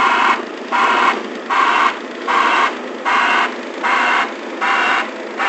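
Travel alarm on a Cat CB24B tandem roller beeping about once every three-quarters of a second, each beep short and high. The roller's diesel engine runs steadily underneath as the machine rolls over the print.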